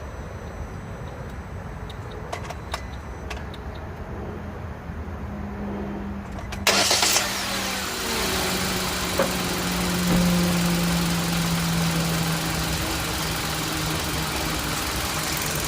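A few sharp clicks, then a car engine cranks and starts about halfway through and settles into a steady idle, its pitch easing slowly downward.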